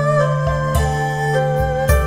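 Background music: a slow melody of held notes over a soft low beat that falls about once a second.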